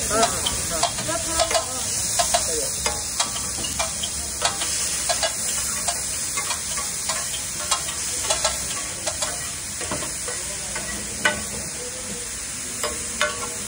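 Chopped onion and tomato sizzling in oil on a large flat griddle, with a steady hiss. A metal spatula scrapes and clacks against the griddle at irregular intervals, about once or twice a second.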